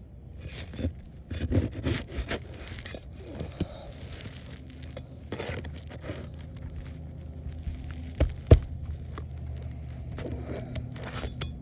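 Flat bar scraping and prying under asphalt roof shingles to work loose a last roofing nail, with scattered clicks and scrapes and one sharp knock about eight and a half seconds in.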